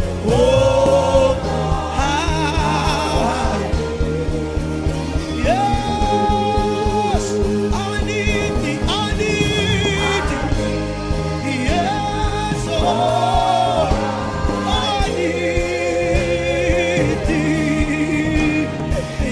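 Gospel worship song: sung voices holding long notes over a band with a steady beat.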